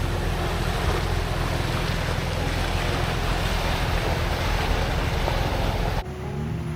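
A vehicle engine runs under a loud, steady rush of water and wind noise on the microphone, as when a 4WD pushes through a river. About six seconds in, the sound cuts off abruptly to a quieter engine hum.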